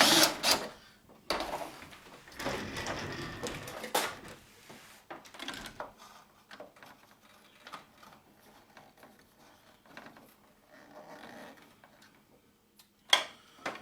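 Metal parts of a disassembled label printer being handled: scattered clatter and clicks, louder and busier in the first four seconds, then softer fiddling, with one sharp knock near the end.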